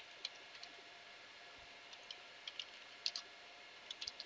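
Computer keyboard being typed on: about a dozen separate key clicks at an uneven pace, over a faint steady hiss.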